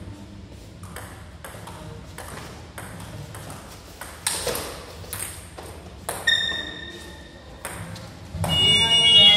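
Table tennis rally: the ball clicking off the bats and the table in a quick, even series of hits, about two to three a second. Near the end a louder sound with several held tones comes in over it.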